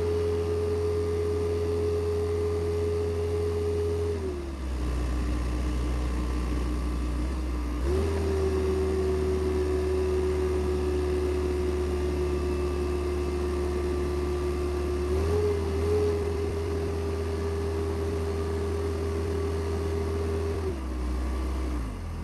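SkyTrak 10054 telehandler's diesel engine running under hydraulic load as the boom is extended and retracted, its speed stepping up and down: it drops about four seconds in, rises again near eight seconds, picks up slightly around fifteen seconds and drops near the end.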